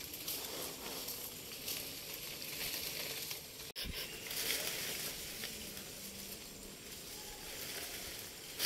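Steady high-pitched hiss with fine crackly rustling, breaking off for an instant a little under four seconds in.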